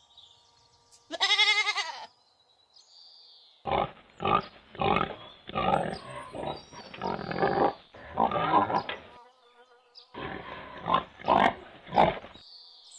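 One bleat about a second in, then pigs grunting in a long run of short calls, with a brief pause about two-thirds of the way through.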